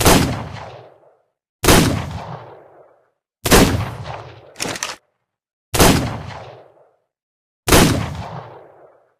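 Revolver gunshot sound effect: five single shots about two seconds apart, each with a reverberant tail dying away over about a second. A short quieter mechanical clatter, like the hammer being cocked, comes between the third and fourth shots.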